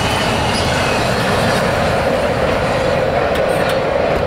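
Double-stack container freight train rolling past close by: a steady, loud rumble and rattle of the well cars' wheels on the rails.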